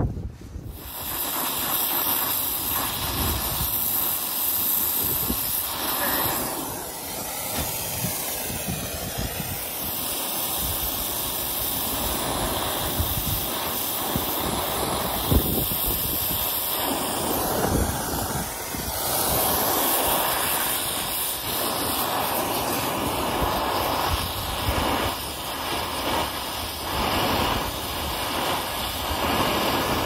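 Brazing torch flame hissing steadily, starting about a second in, as it heats copper refrigerant tubing joints to melt solder and braze the line.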